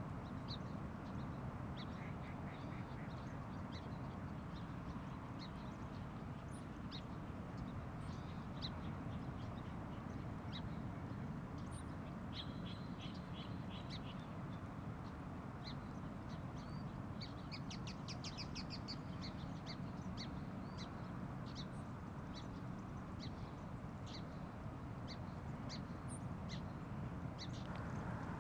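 Virginia rails calling in a marsh: scattered short, duck-like calls, with a quick run of repeated notes a little past the middle, over steady background noise.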